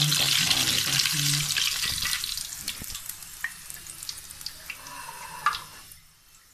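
Potli samosas deep-frying in hot oil, sizzling loudly at first, the sizzle dying away over a few seconds as they are lifted out of the oil on a perforated steel skimmer. A single sharp knock comes near the end.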